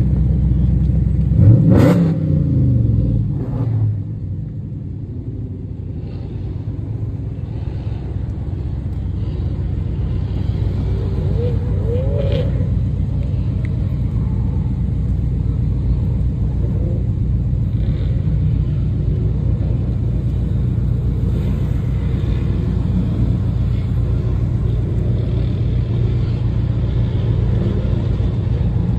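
Dodge Charger SRT8's Hemi V8 running with a steady low rumble. About two seconds in the throttle is blipped: the revs rise sharply and fall away. Another rev starts near the end.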